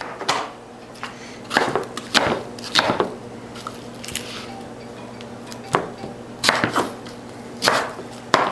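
Chef's knife chopping an onion on a wooden cutting board: about ten sharp, irregularly spaced knocks of the blade striking the board.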